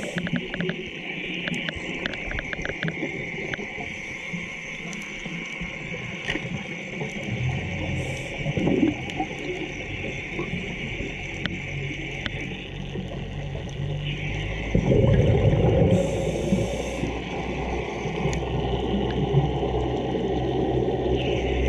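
Scuba diving heard underwater: regulator breathing, with a hiss that comes and goes and a loud gush of exhaled bubbles about fifteen seconds in, plus scattered clicks in the first few seconds.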